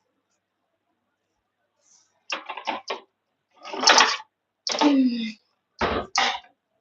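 Kitchen handling noises as onions are prepared: after a quiet start, a quick run of short knocks and rustles about two seconds in, followed by a few longer scraping, rustling bursts.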